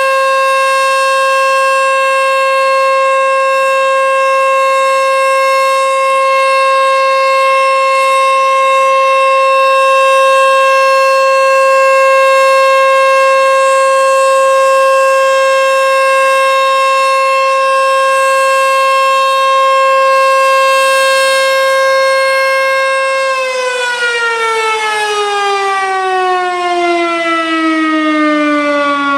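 Sentry 14V-B outdoor warning siren sounding a loud, steady single-pitch alert tone at the end of its 3-minute alert cycle. About 23 seconds in it begins winding down, its pitch falling steadily.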